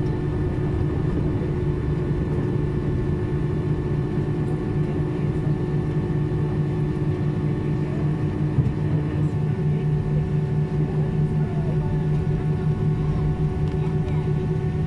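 Airbus A320 cabin noise while taxiing after landing: the IAE V2500 engines at idle give a steady low hum with several steady tones over it, heard inside the cabin over the wing.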